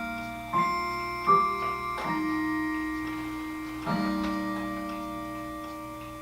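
Trailer score of sparse piano notes: a few notes struck one after another, each left to ring and slowly fade.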